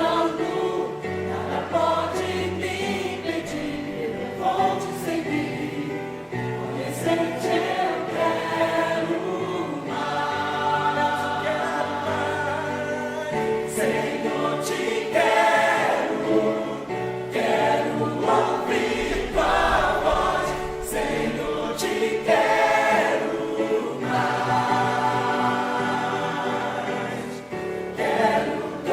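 Choir singing a hymn, several voices together with sustained low notes underneath.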